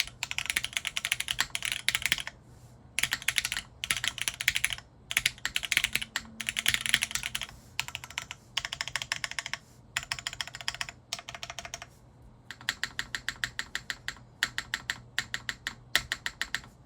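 Typing on a custom mechanical keyboard with lubed Cherry MX Black linear switches on a polycarbonate plate, keystrokes coming in quick runs of a second or two with short pauses between. Near the end comes a longer run of evenly spaced keystrokes.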